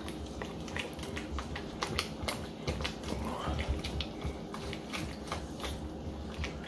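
Metal spoon clicking and scraping against a steel wok while stirring thick noodle soup, in quick irregular clicks a few times a second.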